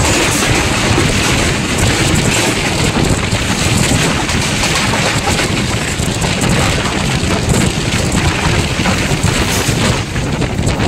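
Loud, steady rushing noise of a train running at speed, which cuts off suddenly near the end.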